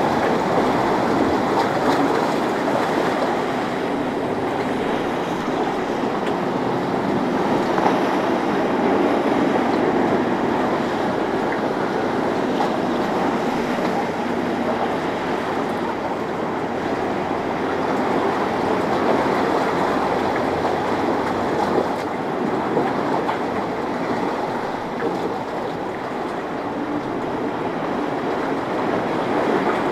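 Boat engines running through rough inlet water, mixed with the rush of waves and wind: a steady, even noise with no clear breaks.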